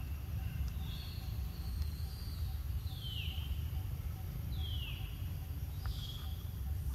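A baby monkey's high-pitched hungry cries: a string of short squeals, two of them clear falling wails about a second and a half apart, over a steady low rumble.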